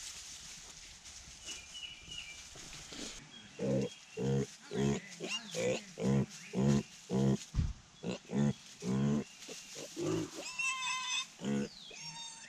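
Young pigs grunting: a run of short grunts, about two a second, starting a few seconds in.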